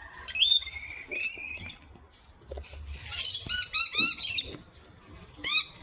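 Parrot calling: a high squawk near the start, a quick run of short calls a few seconds in, and one more call near the end.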